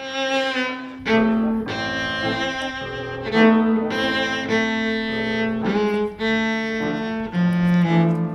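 Background music: a slow melody of held notes, changing about once a second.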